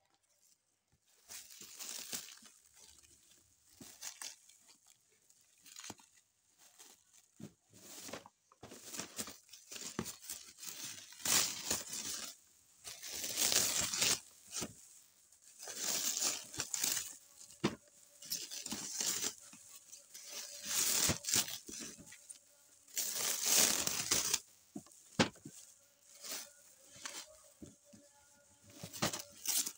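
Clear plastic wrapping crinkling and tearing in repeated rustling bursts as it is pulled off a cardboard parcel. The bursts grow louder and more frequent about a third of the way in.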